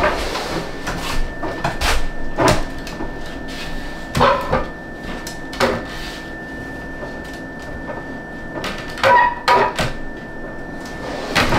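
Irregular wooden knocks and clunks of a painted shelf board being handled at the wall, and a door being swung open against it to check its clearance. A faint steady high hum runs underneath.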